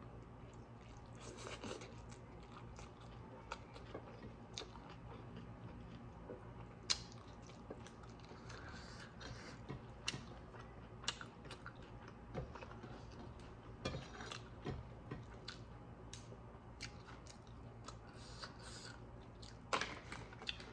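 Close-up chewing and biting of a person eating a meal of greens and chicken curry, with scattered sharp clicks and smacks of the mouth, over a faint steady low hum.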